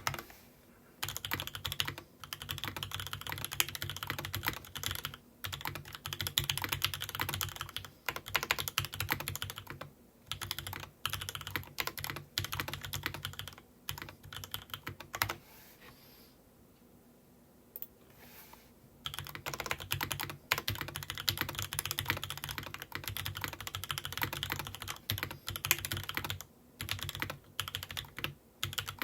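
Typing on a Matrix 2.0add top-mount mechanical keyboard with 43Studios Popu switches in an aluminium plate and GMK Rainy Day keycaps: rapid, continuous keystrokes. There are a few brief breaks and a longer pause of about three seconds near the middle.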